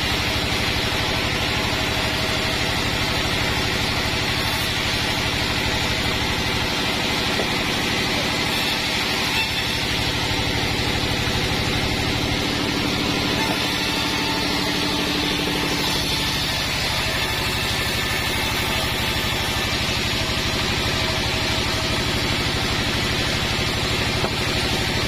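Sawmill bandsaw machinery running steadily, a constant engine-like drone with no breaks. A faint tone rises slightly through the middle and then fades away.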